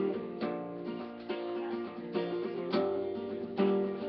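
Steel-string acoustic guitar strummed, a chord struck every half second to second and ringing on between strokes.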